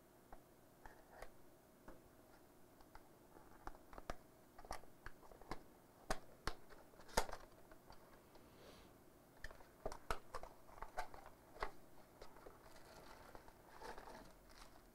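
Small cardboard box being opened by hand: a knife slitting the seal, then the flaps pulled open with scattered clicks and scrapes, the sharpest about halfway through. Near the end comes the rustle of a plastic bag being drawn out.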